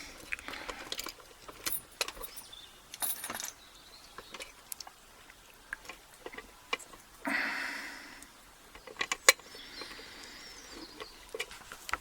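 A bench vise and metal lock gear being moved and handled: irregular clicks and small metallic knocks, with a short scraping rush about seven seconds in.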